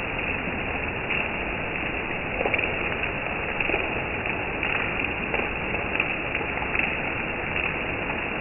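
Heavy rain falling steadily: a constant hiss with scattered brief taps of drops.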